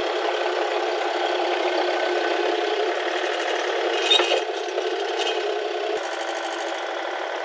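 Bobcat mini excavator running steadily as it tracks, turns and lifts its boom, with a rattling, scraping mechanical clatter. About four seconds in comes a loud clank with a brief high metallic squeal, and a second short squeal follows about a second later.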